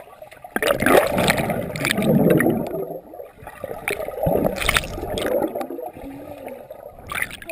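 Swimming-pool water heard from under water: a muffled bubbling and gurgling rush that swells twice, with air bubbles from a swimmer and the water churned by moving bodies.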